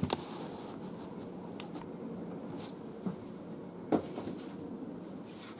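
A few light, sharp taps and knocks of handling noise over quiet room tone.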